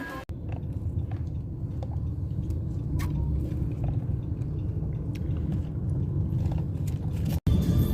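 A steady low rumble with a few faint clicks. It starts abruptly just after the beginning and cuts off suddenly near the end.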